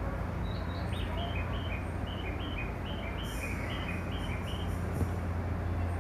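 A small bird chirping a quick series of short notes, about three a second, alternating between two pitches, over a steady low hum. A single click sounds about five seconds in.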